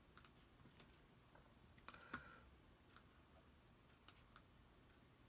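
Near silence with a few faint, scattered computer mouse clicks, the clearest about two seconds in.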